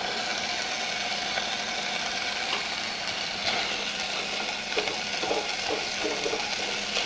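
Cubed bacon sizzling steadily as it starts to fry in a saucepan, with soft scrapes of a slotted spoon stirring it in the second half.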